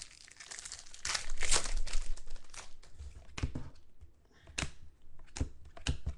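Foil trading-card pack wrapper crinkling as it is handled, loudest about a second in, followed by several sharp clicks of football cards being flipped and slid over one another.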